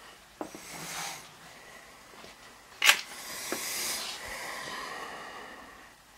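Galvanized sheet-metal duct panels being handled and fitted: a few light clicks, then one sharp metallic knock about three seconds in, with rustling, scraping noise of the metal before and after it.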